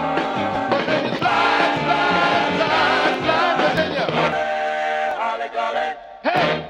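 Early-1960s rock and roll dance record playing from vinyl: a vocal group sings over a band. The bass drops away over the last couple of seconds, and the song ends on one short, loud final hit.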